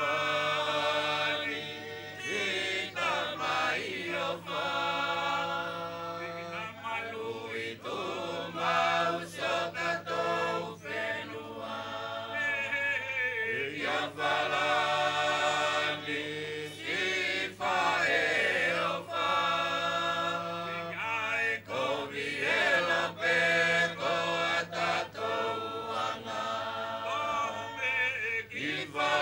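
A mixed chorus of men and women singing together in long, held phrases: the sung chant of a traditional Wallisian me'e group dance.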